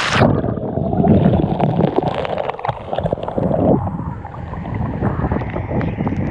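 Water of a waterfall pool churning and splashing, heard muffled: the high hiss of the falls cuts off suddenly just after the start, leaving a dull, dense gurgling with irregular splashes.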